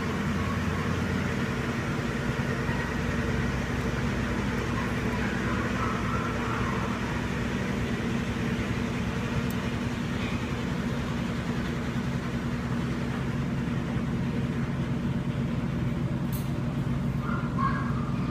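Steady low hum of running machinery, with several held low tones and an even level throughout.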